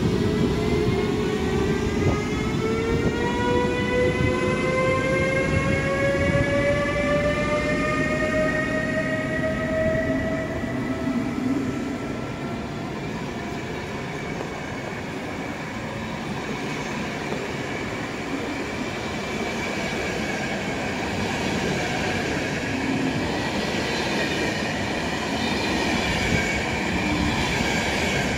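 Siemens Vectron electric locomotive pulling away with a passenger train: its traction-converter whine, several tones together, climbs steadily in pitch as it gathers speed. Then the coaches roll past with steady wheel-on-rail noise.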